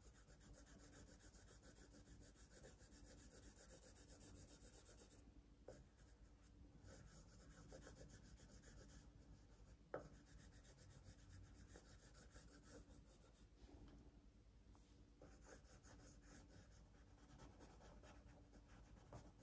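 Faint scratching of a drawing tool on paper in repeated strokes as shading is laid down and faded out, with a single light tick about halfway through.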